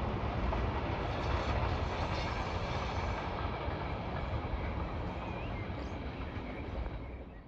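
Freight train rolling past at a distance, a steady rumble of wagons on the track that slowly gets quieter as it moves away, fading out near the end.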